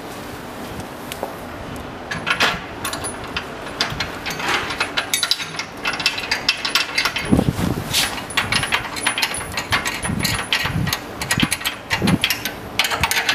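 A metal elevator landing-sill profile being handled and set onto steel wall brackets: a steady run of metallic clicks, knocks and scrapes from about two seconds in, with a few heavier dull thumps as the sill is seated.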